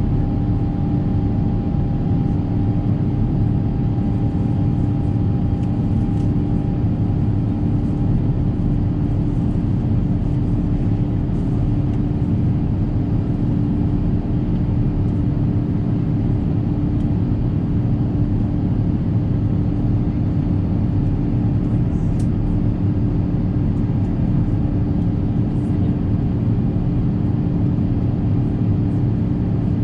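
Steady cabin noise inside an Airbus A350-1000 with its Rolls-Royce Trent XWB engines running: an even low roar with a constant hum through it, and a fainter higher tone that fades out several seconds in.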